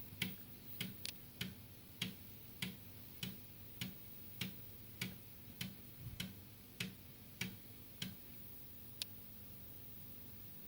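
Amiga 1000's internal floppy drive ticking steadily, about one and a half clicks a second, as its head steps across the Kickstart 1.2 disk while loading Kickstart. The ticking stops about 8 s in, followed a second later by a single tick, the drive's last tick before the machine halts on a green screen, which the owner takes for probably dead chip RAM.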